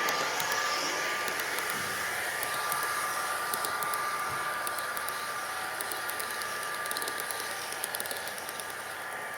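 Model MP40PH diesel locomotive pulling a nine-car train around a layout: a steady motor hum with a thin whine and faint rapid clicking, slowly fading.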